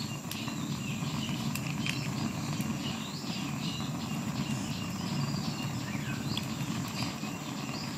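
Repeated short high chirps over a steady low rumble of background noise.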